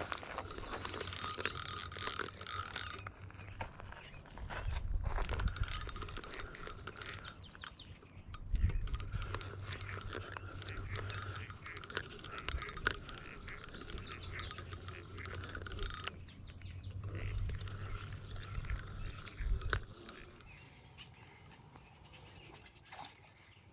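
Fishing reel being cranked to retrieve line, a fast, fine gear ticking, stopping briefly about 3 seconds in and again about 16 seconds in. A low rumble runs underneath.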